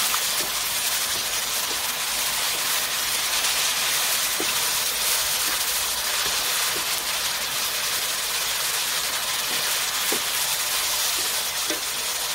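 Mushrooms, carrots, onions and chestnuts sizzling steadily as they fry in a stainless steel pan, stirred with a wooden spoon, with a few light knocks of the spoon.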